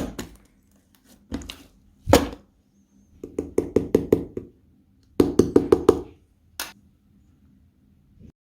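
Slime being squeezed and poked by hand, giving sharp wet clicks and pops: single pops, then two quick runs of about six clicks a second.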